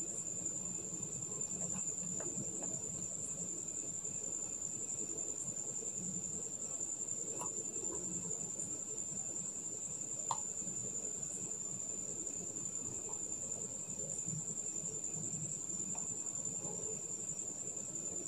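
A steady, high-pitched trill runs throughout over a faint hiss, with a few soft ticks as rhinestones are set down on the fabric by hand, the clearest about ten seconds in.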